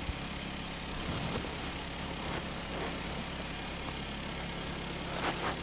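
An engine running steadily with an even low hum, with a couple of light knocks near the end.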